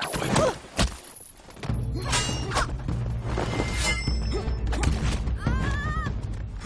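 Film fight-scene soundtrack. Sharp hits and swishes come in the first second, then a steady low music bed starts, with further strikes and ringing metallic sweeps over it.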